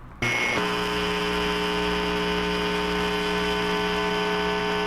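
A steady, unchanging mechanical drone with a fixed pitch, heard over a telephone line; it starts abruptly.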